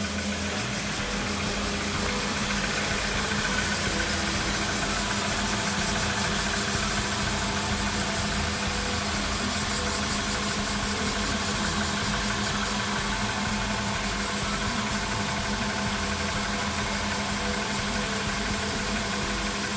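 A car engine idling with a fast, regular clicking over it. The clicking is an abnormal noise that comes from rust on the undercarriage and suspension.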